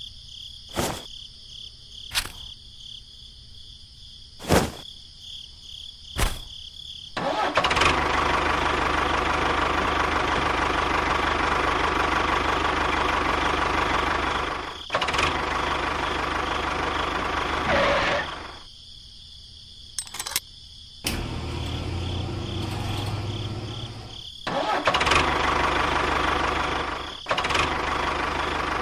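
A few sharp clicks, then from about seven seconds in a tractor engine starts and runs loudly. It cuts out and picks up again several times.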